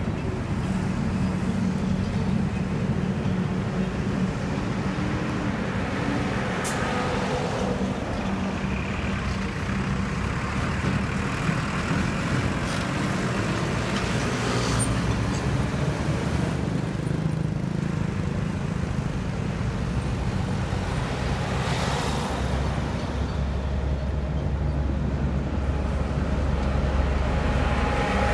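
Highway traffic passing close by: trucks and motorbikes, a steady deep engine and tyre rumble. It grows a little louder near the end as a line of lorries and container trucks draws near.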